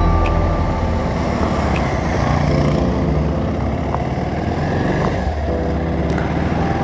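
Motorcycle engine running steadily while the bike is ridden along a road, with rushing noise from the ride.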